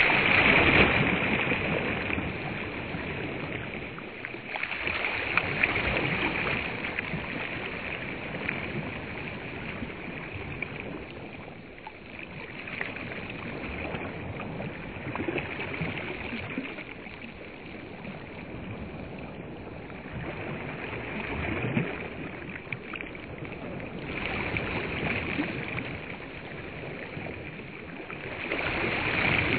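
Small waves washing onto a sandy shore, a rushing noise that swells and recedes every few seconds.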